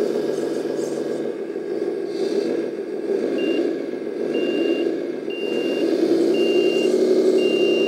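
Steady running hum from a radio-controlled 10x10 roll-off dump truck, with its sound module's reversing beeper starting about three seconds in and beeping about once a second as the model backs up.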